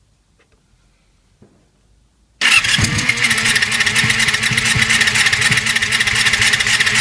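Electric starter cranking the 1999 Yamaha YZF-R6's four-cylinder engine. It cuts in suddenly about two and a half seconds in, with a rising whine as it spins up, then turns over steadily with a pulsing beat, two to three a second. The engine is being cranked to check for spark at a plug held in its coil and grounded against the chassis.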